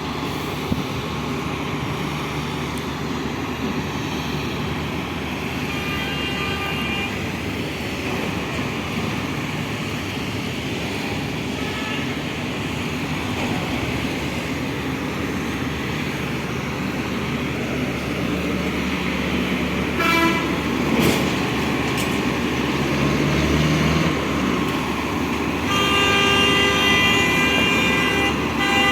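Steady running noise of heavy vehicles or machinery, with a horn sounding briefly about six seconds in, again for a moment around twenty seconds, and in a longer blast near the end.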